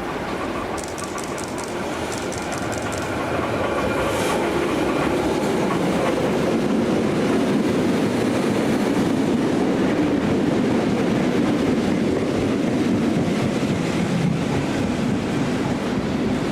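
Tait electric suburban train running on the rails, growing louder over the first few seconds and then holding a steady rumble, with rapid clicking from the wheels early on.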